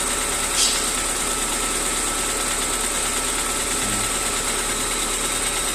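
Car engine idling steadily with a knocking noise from the valve train, which the mechanic puts down to too much valve clearance between the lifters and the camshaft. A brief sharper sound stands out about half a second in.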